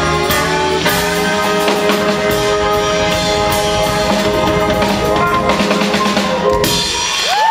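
Live band and choir holding the final chord of a song, with saxophones and drum-kit fills and a last drum hit near the end. A rising whistle starts right at the close.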